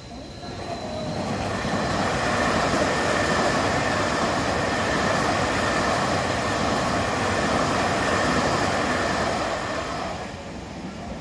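Electric commuter train passing over a level crossing at close range: wheels and running gear on the rails build up over about two seconds, hold steady with a thin high whine running through, and fall away near the end.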